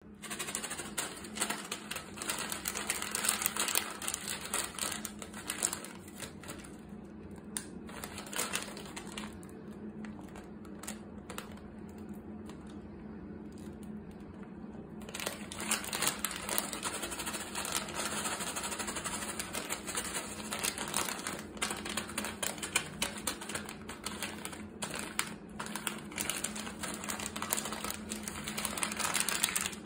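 Sealed plastic snack bag of pumpkin seeds crinkling and crackling as it is handled and turned over, quieter for a stretch in the middle. A low steady hum sits underneath.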